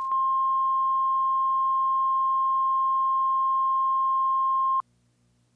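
A steady 1 kHz sine test tone, of the kind placed at the head of a video tape, held level and then cut off sharply about 4.8 seconds in. A faint low mains hum sits under it.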